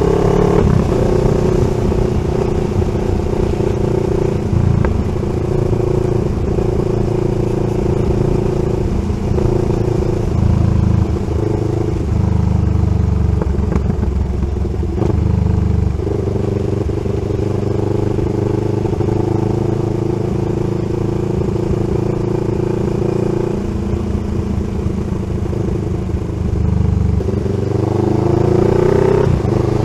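CFMoto 700CL-X Sport's parallel-twin engine under way through an SC-Project slip-on exhaust, its note shifting with throttle and rising near the end.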